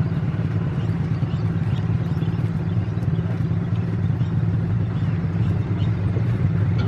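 Pakistan Railways AGE-30 diesel-electric locomotive's engine running with a steady low drone as it approaches, growing slightly louder near the end.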